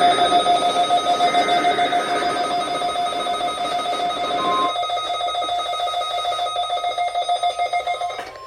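Weather alert radio receiver's electronic alarm sounding: a steady, rapidly pulsing tone that cuts off shortly before the end. A rushing background hiss under it drops out abruptly about halfway through.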